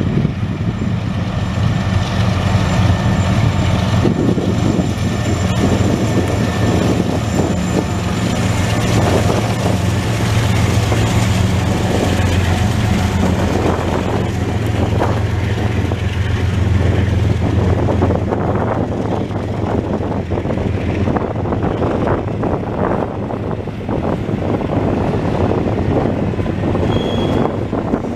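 Norfolk Southern diesel locomotives passing with a steady low engine drone that weakens after the middle, then double-stack container well cars rolling by, their wheels clattering on the rails. A short high squeal sounds near the end.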